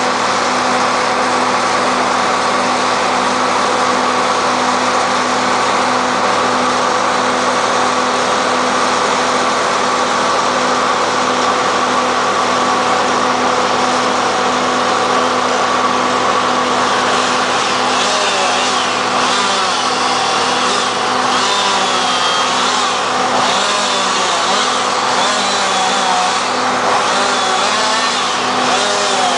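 A heavy-equipment engine running steadily at one speed. From a little past halfway a second, higher sound wavers up and down over it.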